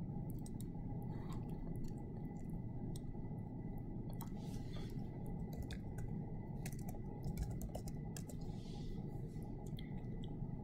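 Faint computer keyboard typing and mouse clicks, scattered sharp clicks over a steady low hum.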